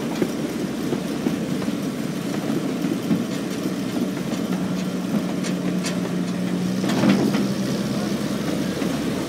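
A one-third-scale park train running along its track, heard from aboard: a continuous running noise with a few clicks of the wheels over the rail joints, and a steady hum that sets in about three seconds in.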